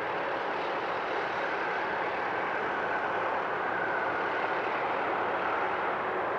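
Steady jet noise from an Airbus A350-900's Rolls-Royce Trent XWB turbofans at takeoff power as the airliner climbs away. A faint whine comes through about halfway.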